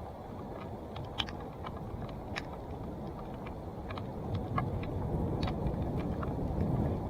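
2017 Salsa Timberjack NX1 mountain bike riding a dirt trail: a steady rumble of tyres and wind on the mic, with scattered clicks and rattles from the bike, louder and busier in the second half.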